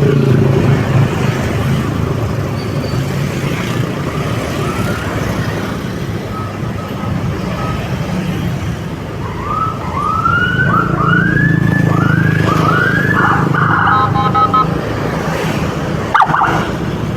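Vehicle engine and road noise while driving at speed. About ten seconds in, an emergency siren gives a quick run of about five rising-and-falling yelps. It is followed by a brief steady multi-tone blast, and a short sharp blip comes near the end.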